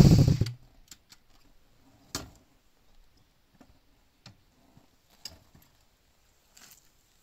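Honda VTZ250's 90-degree V-twin engine running loud through its aftermarket slip-on exhaust, then cutting out about half a second in. After that, only a handful of faint, scattered clicks and taps.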